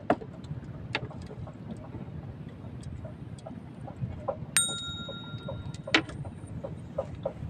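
A single metallic ding, like a small bell struck once, ringing for about a second, among scattered light clicks and taps.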